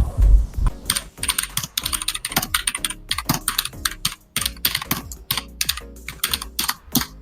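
Typing on the AULA F2058 mechanical gaming keyboard: fast, irregular clacking of mechanical key switches starting about a second in, after a low thud at the start.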